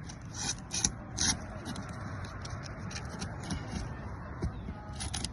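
Brittle roof shingles scraping and crackling as they are pried loose, with a few sharp cracks in the first second and again near the end. They are too brittle to lift without tearing.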